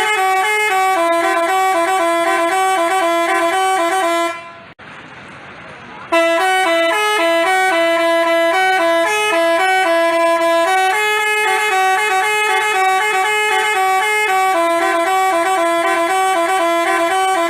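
Basuri telolet bus horn playing a fast multi-note melody, its notes hopping up and down in quick steps. It breaks off for about two seconds roughly four seconds in, leaving only a low hiss, then starts the tune again.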